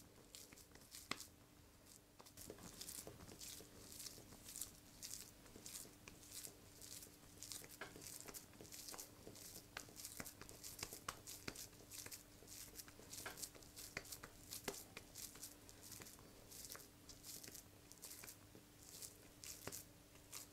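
Wet hands squishing and patting raw beef mince between the palms, shaping chapli kabab patties: a faint, irregular run of soft squelches and pats, two or three a second.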